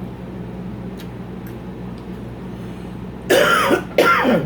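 A woman coughs twice in quick succession, two loud rough bursts near the end, over a steady low room hum.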